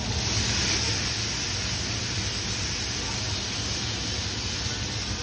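Steady sizzling hiss of food frying: seasoned fish fillets laid on a hot buttered electric griddle, beside French fries bubbling in a pan of oil. The hiss brightens just after the start and then holds even.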